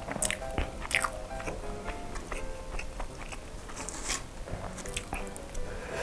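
Crispy fried chicken coating crackling and crunching as it is torn apart by hand and chewed, many short sharp crackles. A light melody plays underneath.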